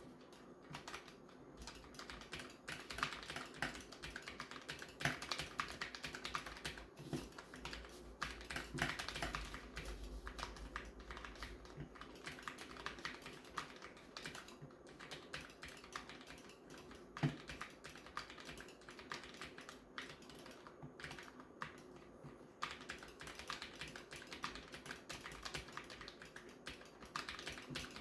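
SMK-1C mechanical keyboard with red (linear) switches being typed on: a rapid, continuous run of key clicks with a few louder strokes.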